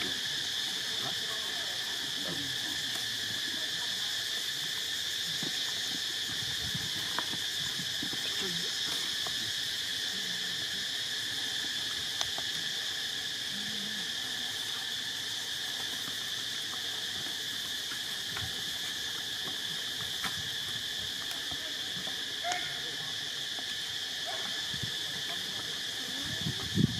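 Steady, high-pitched drone of an insect chorus, with a few faint scattered clicks.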